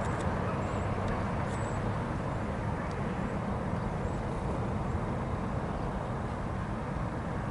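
Steady low rumble of road traffic mixed with a distant diesel freight train approaching slowly, with a few faint high chirps in the first couple of seconds.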